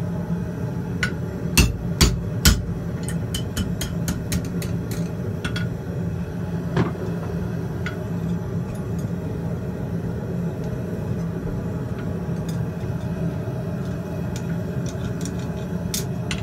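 Farrier's hammer striking steel on an anvil while shaping a hot horseshoe: three heavy blows about two seconds in, then a quick run of lighter taps and a few scattered strikes. A steady roar, likely the gas forge, runs underneath.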